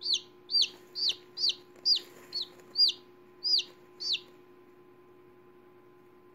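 A newly hatched chicken chick peeping: about nine short, high peeps, each dropping in pitch, roughly two a second, stopping a little after four seconds. A faint steady hum runs underneath.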